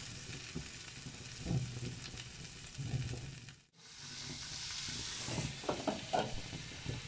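Butter sizzling under bread slices on a hot iron tawa, then, after a brief dropout a little past halfway, an egg omelette sizzling more brightly in a frying pan. A few light knocks from handling sound in between.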